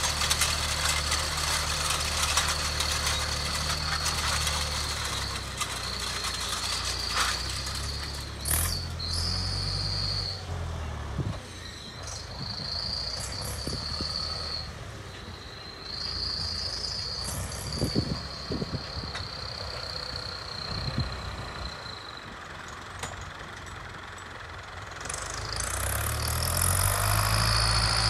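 Case IH 844 XL tractor's four-cylinder diesel engine pulling a seed drill across a field. The engine note fades as the tractor moves away and grows louder again near the end as it turns back.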